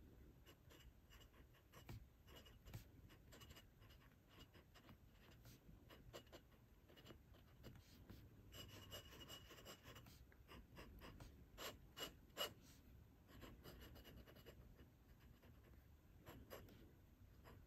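Faint scratching of a glass dip pen writing on paper: light strokes and ticks as letters and lines are drawn, with a longer stroke about nine seconds in and two sharper ticks a few seconds later.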